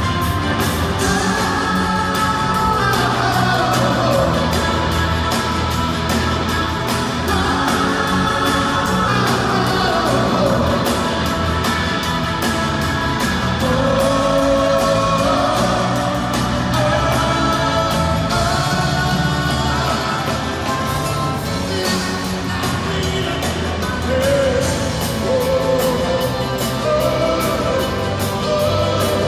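Live rock band playing with singing: a steady, full band sound with a gliding melody line over it.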